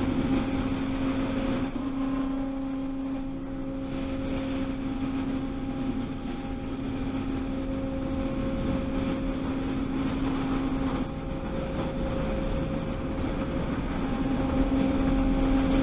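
Automatic car wash machinery running with a steady hum and a wash of noise, heard muffled from inside the car. The hum drops out for a few seconds about two-thirds through, then returns, and the noise grows near the end.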